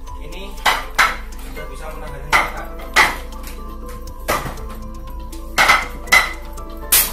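KIMU portable wooden Wing Chun dummy (mok yan jong) struck by hand in a training drill: about eight sharp wooden knocks, unevenly spaced and some in quick pairs, over soft background music.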